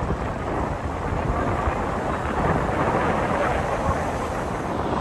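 Wind buffeting the microphone: a steady rush of noise with low, uneven buffeting and no distinct events.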